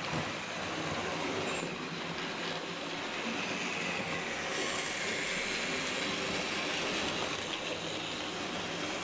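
H0-scale model trains rolling past on the track: a model diesel locomotive, then a string of freight wagons, with a steady rolling noise of wheels on rails.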